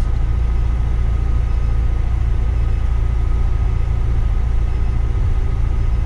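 Steady cabin noise of an intercity coach cruising on the highway, heard from the driver's seat: a constant deep rumble of engine and tyres with no change in pace.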